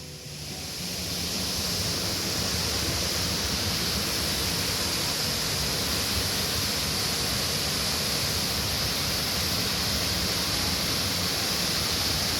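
Waterfall: a steady rush of falling water that swells in over the first two seconds, then holds level.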